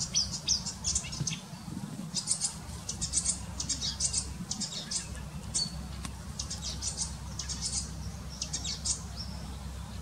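Acrocephalus warbler singing a fast, varied song: rapid, high-pitched chattering phrases run on one after another with only brief pauses between them.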